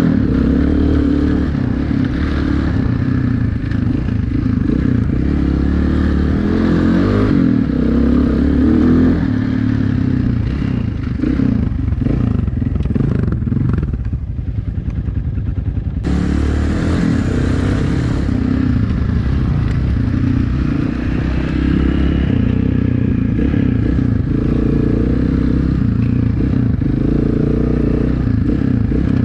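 Motorcycle engine running as it is ridden over soft sand, its note shifting with the throttle, with some rattling from the bike. About twelve seconds in it drops back to a lower, quieter run, then comes back up abruptly at about sixteen seconds.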